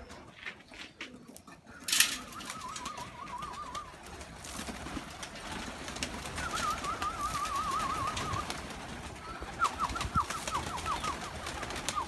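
Pigeons taking off, their wings flapping and clapping in many quick claps, with one sharp loud crack about two seconds in. A warbling whistled trill sounds three times, the last as a run of short chirps.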